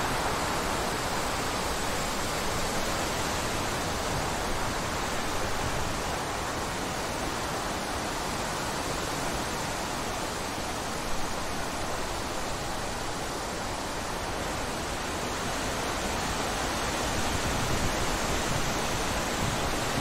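Wind blowing steadily through woodland trees and undergrowth: a constant rushing noise with a low rumble underneath.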